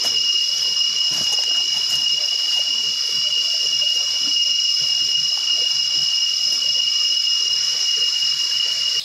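A chorus of cicadas droning in tropical rainforest, a steady high-pitched whine made of two unbroken tones.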